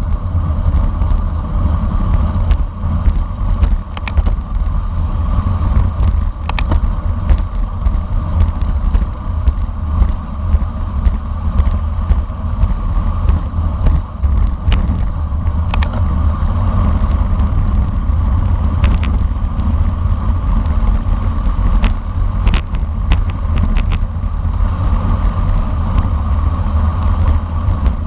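Steady wind buffeting and road rumble on a camera microphone riding on a bicycle in a road race, with scattered short clicks and rattles.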